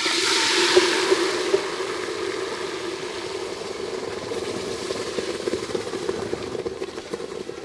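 Blended wet paste poured into hot oil in an aluminium pot: a loud sizzle that starts suddenly, is fiercest for the first second or so, then slowly dies down to a steady frying.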